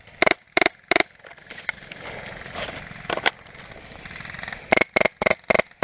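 Airsoft gun fired shot by shot: two sharp cracks at the start, a single one past the middle, and four quick shots near the end. Rustling and scuffling runs between the shots.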